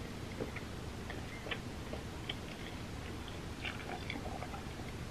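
A person drinking from a glass, close to the microphone: sips and swallows with small, scattered wet mouth clicks.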